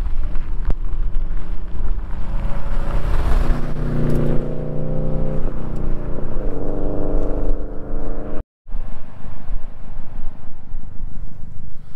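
Subaru WRX STI's turbocharged flat-four engine and tyres coming up and driving past at speed; the engine note rises and then drops in pitch as the car goes by. A short dropout follows about two-thirds of the way through, then a steady low rumble.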